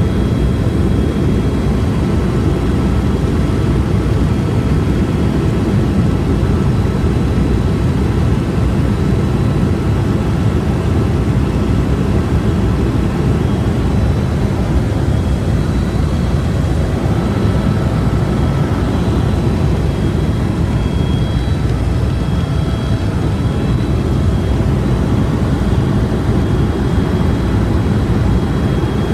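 Helicopter in flight: a steady, loud rumble of engine and rotor, with a faint steady high whine above it.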